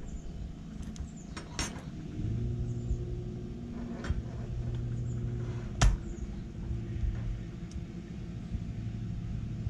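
A few sharp metal clicks and knocks as a Honda Magna 750 carburetor bank is handled and worked with a screwdriver on a wooden table. The loudest click comes about six seconds in. Under them a steady low hum starts about two seconds in.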